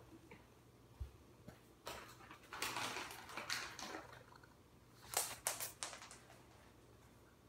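A cat scampering after treats on a hard kitchen floor: a scuffling rustle as it dashes past, then a quick cluster of sharp clicks as it skids and bats about.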